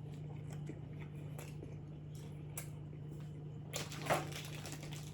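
Quiet eating and food-handling noises: scattered faint clicks and small squishy sounds over a steady low hum, with a short rustle about four seconds in.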